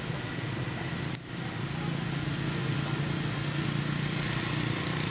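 A steady low hum like a motor running, with a brief drop-out about a second in.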